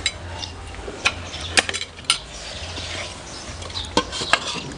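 Metal ladle and utensils clinking against a stainless steel pot and plate as coconut curry is ladled out: a handful of sharp, separate clinks.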